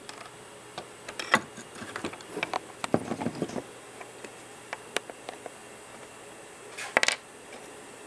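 Irregular small clicks, taps and knocks of hand tools and parts being handled on a bench, with a louder cluster of clatter about seven seconds in.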